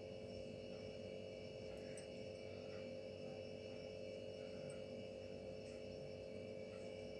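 Steady faint electrical hum with several constant tones, one low and a few high.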